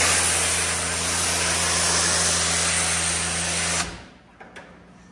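Kränzle 1622 TS electric pressure washer running with a foam cannon: a loud hiss of foam spraying over a steady motor hum. Both cut off together a little under four seconds in as the spraying stops.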